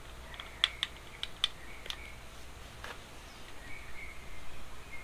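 Light metallic clicks and taps of motorcycle intake manifold pipes and their nuts being handled and fitted onto the engine: about half a dozen sharp ticks, scattered over the first three seconds.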